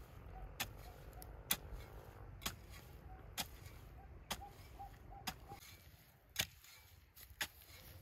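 A hand tool chopping with steady, sharp strikes about once a second, each a short crisp knock.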